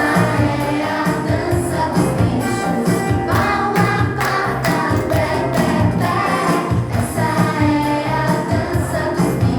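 Upbeat song with a choir of voices singing over a band accompaniment with a steady beat.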